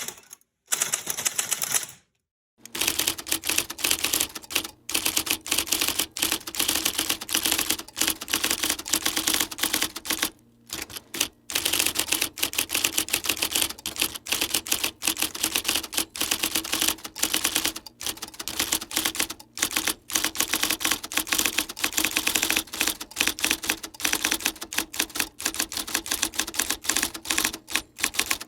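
Typewriter keys being typed rapidly, a dense run of clacking strikes. It starts a couple of seconds in after a short pause, and slackens briefly around the middle.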